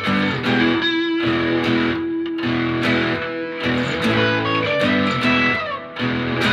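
Instrumental background music led by guitar, with held chords that change every second or so over sharp rhythmic strokes.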